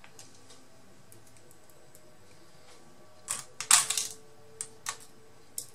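Hands working small metal and plastic parts while reassembling a laptop near its cooling fan and heatsink: faint scattered clicks, a short burst of clatter about three and a half seconds in, then three single sharp clicks.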